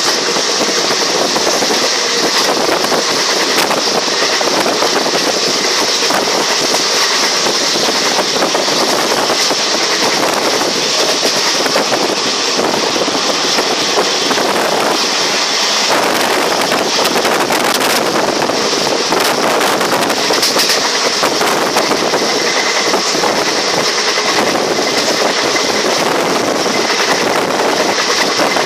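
Running noise of a moving train heard from aboard: a steady, loud rush of noise with rapid fine rattling throughout.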